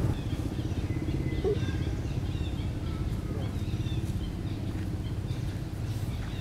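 A steady low rumble, like a motor running nearby, with faint high bird chirps scattered over it.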